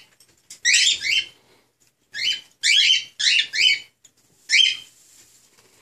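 Newly hatched cockatiel chicks chirping: short, rough calls in quick runs of two or three, about seven in all.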